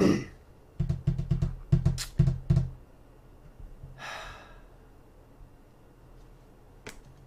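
Dull thumps and rubbing knocks of handling close to the microphone, a hand brushing near the face and earbud cable, in a quick run over the first three seconds. Then a single breathy sigh about four seconds in, with a faint click near the end.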